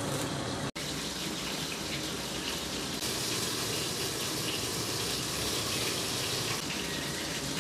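Fish frying in hot oil: a steady sizzling hiss, briefly cut by a gap under a second in and growing brighter for a few seconds in the middle.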